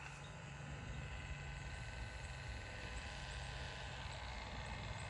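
Electric heat gun running: a steady blowing fan with a faint motor whine.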